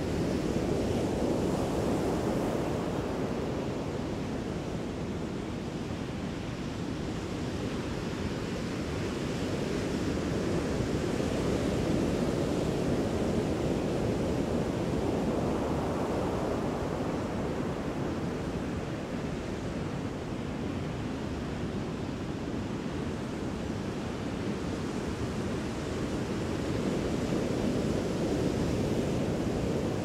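Large ocean waves breaking and surf churning: a steady rush of water, deepest and strongest in the low end, that swells and eases a few times.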